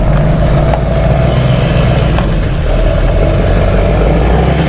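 Steady low mechanical drone, like a motor or engine running.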